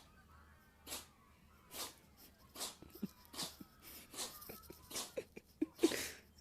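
A pet animal sneezing in a steady series: about eight short, breathy sneezes, a little under a second apart.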